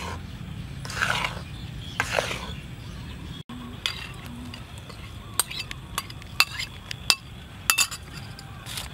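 A metal ladle scraping around a metal wok of thick sugar syrup, about one stroke a second. After a sudden cut, a metal spoon clinks sharply against the wok about nine times.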